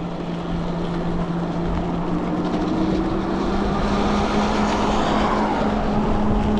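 Ariel Rider Grizzly e-bike's electric hub motors whining while accelerating, the low whine rising slowly in pitch. Under it is a steady hiss of tyres and wind on the wet road.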